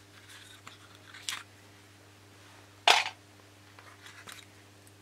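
Pins being pulled out of the building board around a balsa wing frame by hand: three short, sharp clicks, the loudest about three seconds in, with light rustling between them.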